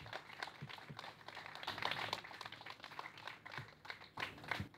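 Audience applauding, the clapping dying away at the end.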